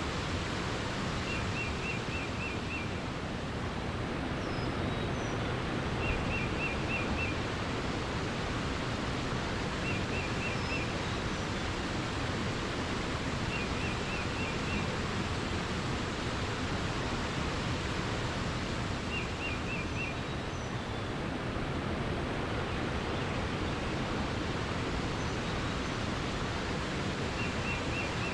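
Steady rush of flowing water, with a bird repeating a short trill of four to six quick notes every few seconds and a few faint higher chirps.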